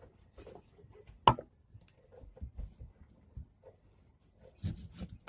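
Kitchen items being handled while she gets set up to juice oranges: scattered light knocks and clicks, one sharp click about a second in, and a busier patch of clattering and scraping near the end.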